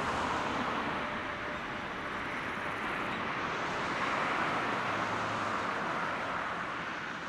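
Jet engine noise of a Boeing 737-900 climbing away after takeoff, its CFM56-7B engines heard as a steady, distant rushing noise.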